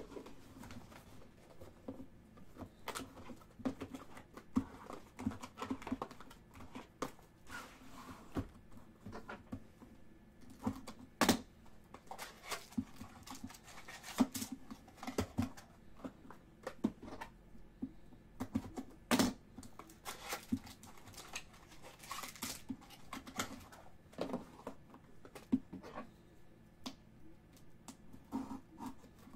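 Baseball trading cards handled and flicked through by hand: irregular sharp clicks and taps, with two louder snaps about eleven and nineteen seconds in, and the crinkle of foil card-pack wrappers.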